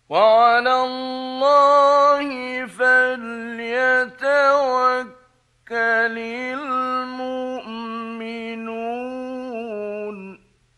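Male Quran reciter chanting a verse in the ornate melodic mujawwad style, with long held, wavering notes. Two phrases, with a short pause for breath about five seconds in.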